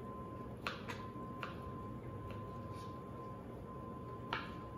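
Kitchen knife slicing ripe strawberries on a cutting board: a handful of irregular, sharp taps as the blade meets the board, with a faint steady high hum throughout.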